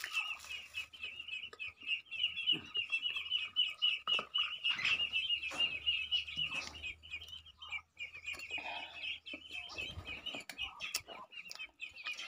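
Young ducklings peeping continuously in a dense, high-pitched chorus of rapid chirps, with a few sharp taps among them.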